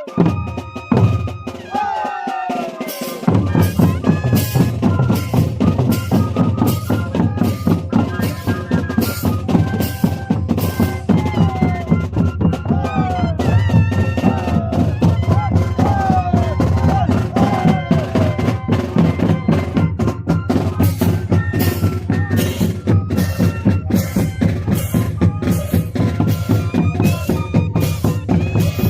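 Moseñada band playing: moseño cane flutes over a steady beat of bass drums and snare drums, the full band coming in about three seconds in.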